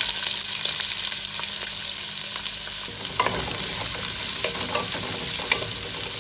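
Sliced red onions sizzling in hot olive oil in a pot, a steady hiss as they sauté. From about three seconds in, a wooden spatula stirs them, adding light scrapes and clicks against the pot.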